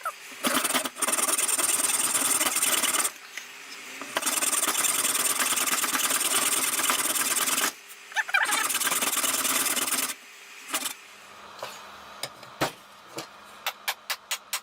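A power tool cutting or sanding the wooden hammer handle in three runs of a few seconds each, each starting and stopping abruptly. From about ten seconds in, a series of light, sharp taps and clicks.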